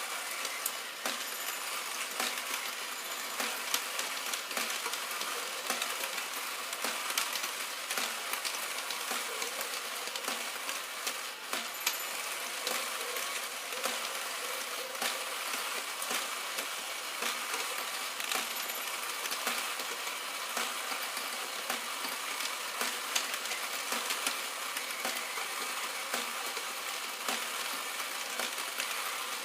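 Epoch Doraemon battery-operated pachinko toy running: a dense, steady clatter of many small clicks and clinks over a constant whirring hiss, starting abruptly.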